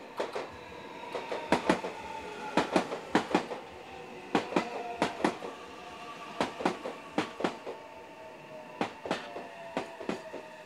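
Meitetsu 9500 series electric train rolling past slowly, its wheels knocking in quick groups of two to four over the rail joints and points of the junction. Under the knocks runs a faint whine that slides slowly lower.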